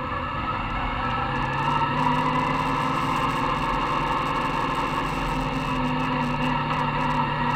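Dirt modified race car's engine heard from inside the cockpit, running at low revs; its note rises about a second and a half in and then holds steady.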